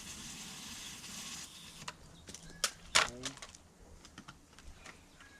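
Water spray hissing, cut off suddenly about a second and a half in, followed by scattered light clicks and one brief voice-like sound near the middle.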